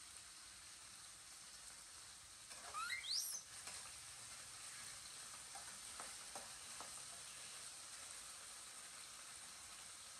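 Faint steady sizzle from a wok heating on a portable gas stove, with a few light spatula taps around the middle. About three seconds in comes a short high squeal that rises sharply in pitch, from a baby macaque.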